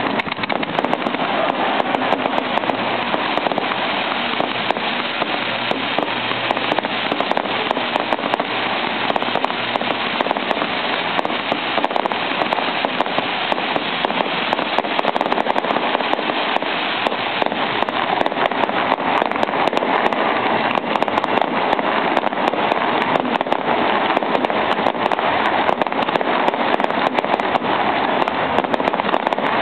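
Fireworks going off in a steady barrage of dense crackling and popping, many sharp cracks close together without a break.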